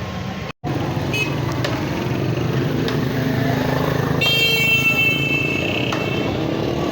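Street traffic with vehicle engines running and a vehicle horn sounding for nearly two seconds about four seconds in. The sound drops out briefly just over half a second in.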